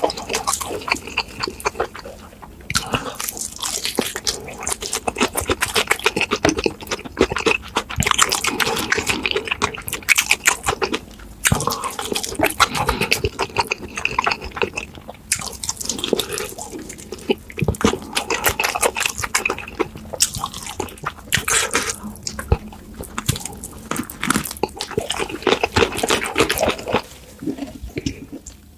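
Close-miked wet eating sounds: noodles being slurped and chewed, with dense irregular smacking and clicking mouth noises.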